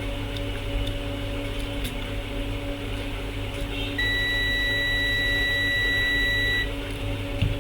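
Digital multimeter's continuity buzzer giving one steady high beep for about two and a half seconds, starting about four seconds in, as the probes touch a low-resistance point on the laptop motherboard. A steady low electrical hum runs underneath.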